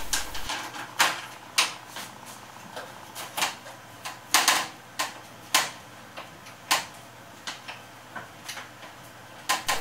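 Irregular clicks and light knocks of the Akai GX-625 reel-to-reel deck's metal top panel and case being handled and fitted back on during reassembly.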